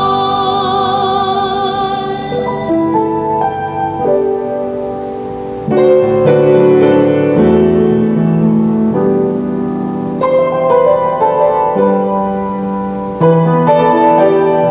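A female cantor holds the last note of a hymn phrase with a wavering vibrato for about two seconds. Then a piano plays alone, a slow interlude of sustained chords, with louder chords struck about six, ten and thirteen seconds in.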